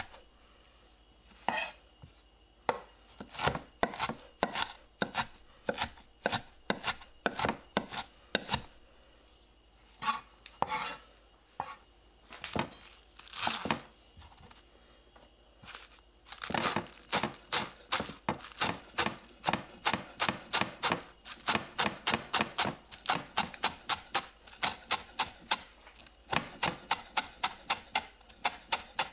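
Kitchen knife chopping on a wooden cutting board. Scattered knocks at first, then from about halfway a steady, fast run of chopping strokes through garlic chives, about three a second.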